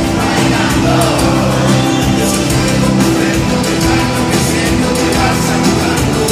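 Live Latin pop band music over a stadium sound system, with a steady beat and a singing voice, heard from the stands.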